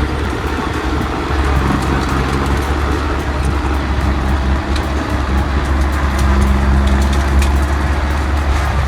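Truck engine running steadily, a loud low drone with a level hum above it.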